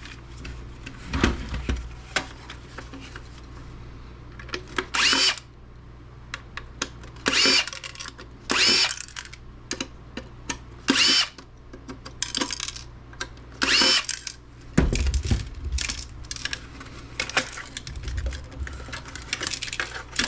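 Power driver with a number 1 Phillips bit spinning out screws in about five short whirring bursts, mixed with clicks and clatter of parts being handled and a few low thumps.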